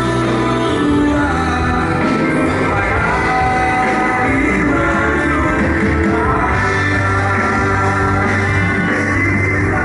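A band playing a song with guitar and singing, loud and continuous.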